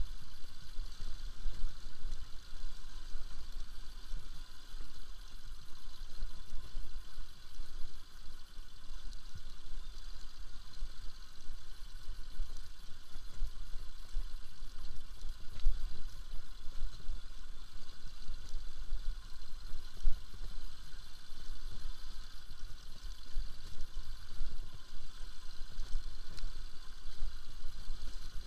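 Bajaj Pulsar RS200's single-cylinder engine running as the motorcycle is ridden over a rough stony dirt track, under a steady fluttering rumble of wind on the microphone.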